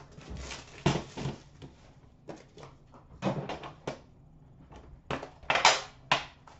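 A metal Upper Deck hockey card tin being handled and opened: a run of clicks, scrapes and knocks about a second apart, the loudest about five and a half seconds in, by which point the lid is off.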